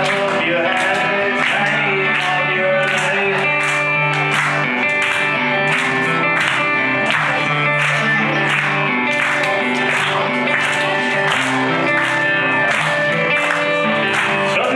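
Live band music: guitar and bass over drums keeping a steady beat, with the cymbals hit regularly.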